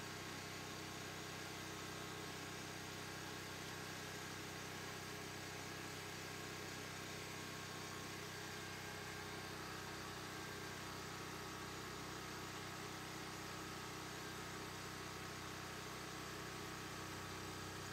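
Faint, even mechanical hum with several steady tones and no change throughout.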